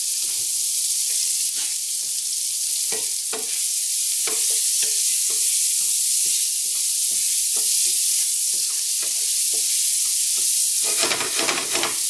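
Diced onion sizzling in hot butter and olive oil in a nonstick frying pan, stirred with a wooden spoon: a steady hiss with frequent small crackling pops, and louder stirring near the end.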